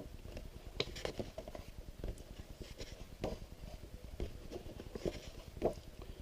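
Quiet handling noise: scattered soft taps and rustles from hands moving objects on a table.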